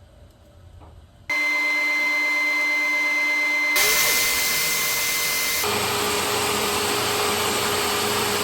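A power tool running steadily as it cuts a groove in a small wooden leg. It starts suddenly about a second in, and its whine changes pitch abruptly twice.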